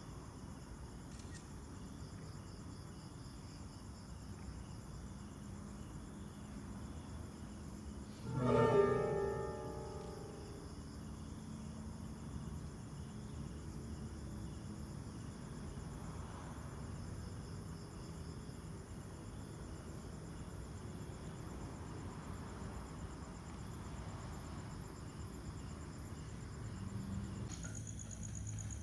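Insects, crickets by their sound, chirping steadily in a continuous chorus. About eight seconds in, a single loud pitched note sounds and fades over a couple of seconds.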